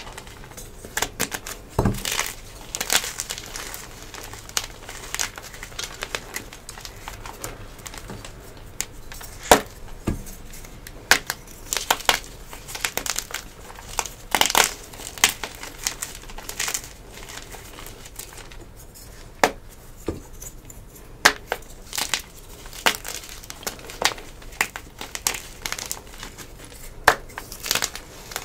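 Dyed gym chalk crushed and squeezed by hand, with irregular crunching and crumbling as chunks break apart into powder and a few louder sharp cracks among them.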